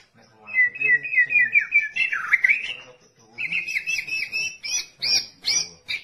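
White-rumped shama (murai batu) singing: a fast run of repeated short notes, then a downward-swooping note a little over two seconds in. After a brief pause it sings another rapid run of sharp notes.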